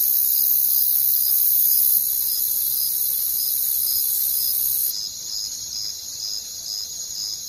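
Chorus of field insects: a steady high-pitched trill with a chirp pulsing about twice a second. It drops somewhat in level about five seconds in.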